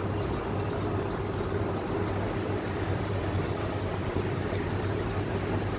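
Steady rushing background noise with a constant low hum, and faint high chirps repeating about twice a second.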